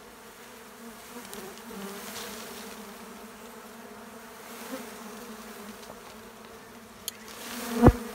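A cluster of Asian honeybees buzzing steadily around their comb. A short click comes about seven seconds in, then a loud thump just before the end.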